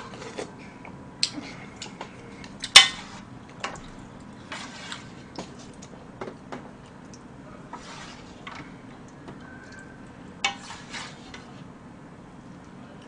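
A metal spoon and chopsticks clink and scrape against a stainless-steel pot and a small bowl as scorched rice soup is ladled out. The clinks are scattered, and the sharpest comes about three seconds in, over a low steady hum.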